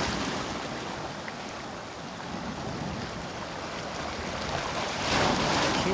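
Sea waves washing against shore rocks, a steady wash with a louder surge about five seconds in.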